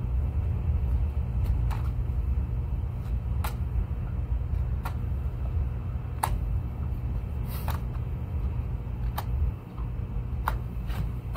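A steady low rumble, with short sharp clicks about every second and a half.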